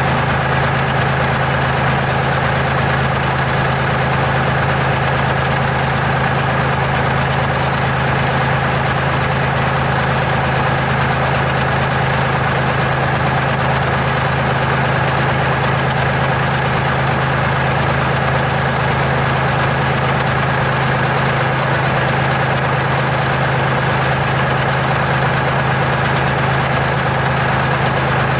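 Diesel engine of a Terex R-35 rigid dump truck idling steadily, with a strong low hum and no change in speed.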